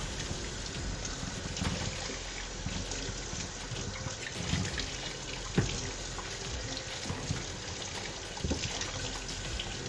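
Kitchen faucet running steadily, its stream splashing over a plastic spatula and a hand into a stainless steel sink. A few light knocks come through, the sharpest about halfway through.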